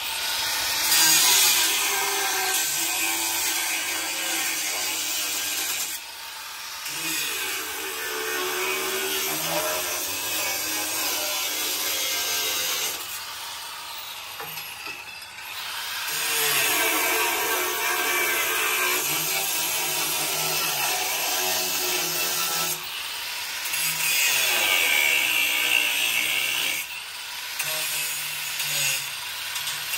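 Angle grinder with a cut-off wheel cutting through a steel pickup frame rail, the motor note sagging and recovering as the wheel bites. It runs in long passes with short let-ups about six seconds in, around thirteen to sixteen seconds, and near twenty-three and twenty-seven seconds. The frame is being trimmed a little at a time so a step notch will fit.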